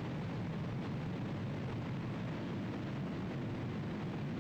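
Rocket engine firing on a horizontal test stand: a steady, continuous noisy roar of exhaust, heaviest in the low range, with no sudden bang.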